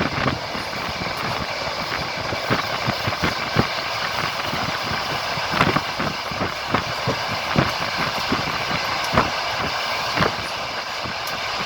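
Passenger train running at speed: a steady rumble of the carriage with the clatter of its wheels knocking over the rail joints several times a second.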